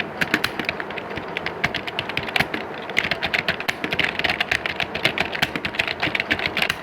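Dense, continuous clatter of computer keyboard keys being typed on, many keystrokes overlapping like several typists at once in an exam hall.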